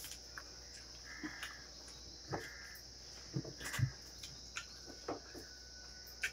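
Quiet eating by hand: fingers mixing and scooping rice on a steel plate, and chewing, with scattered soft clicks and a couple of louder thuds. A steady high-pitched trill runs underneath.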